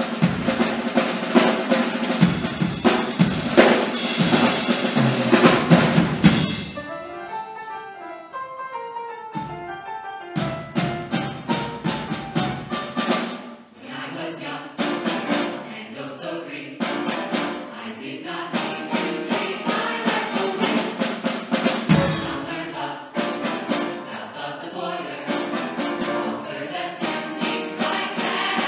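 Drum kit played with sticks together with a grand piano. A loud full passage gives way about six seconds in to a quieter stretch of piano, and the drums come back in with sharp snare and cymbal strokes about ten seconds in.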